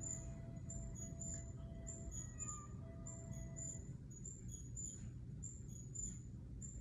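High-pitched chirps repeating about twice a second, often in pairs, over a steady low hum.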